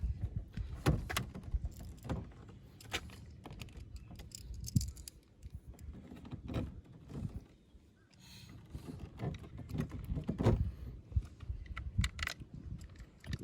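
Irregular clicks, taps and light rattles of hands handling plastic trim parts and small hardware while a pickup's door switch panel is reassembled.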